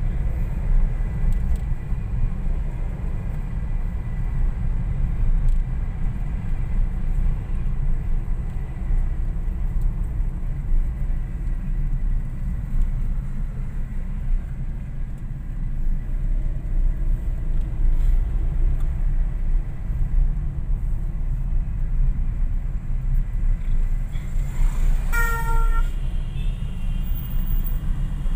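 Steady low rumble of a moving car heard from inside its cabin. A horn sounds once for about a second near the end.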